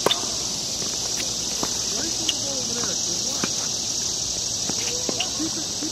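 A tennis racket strikes the ball with one sharp crack right at the start, followed by a few fainter knocks of play. All of it sits over a steady, high-pitched drone of summer insects.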